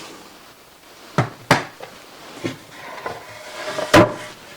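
Wooden boards knocking as they are handled and fitted together for assembly: two sharp knocks close together about a second in, a few lighter ones, and the loudest knock near the end.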